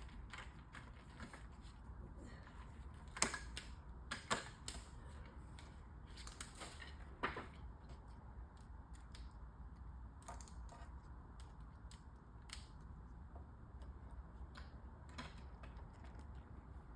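Scattered light clicks and knocks of playpen parts and cam-bolt hardware being handled and fitted, with a few sharper knocks in the first half and small ticking clicks later, over a faint low hum.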